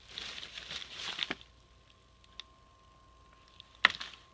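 Hands rummaging through dumpster trash: plastic and loose items rustling and crinkling for about a second, then a pause and a single sharp knock near the end.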